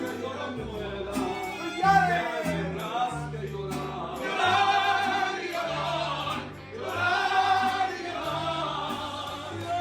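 Background music: a song with sung vocals over a bass line.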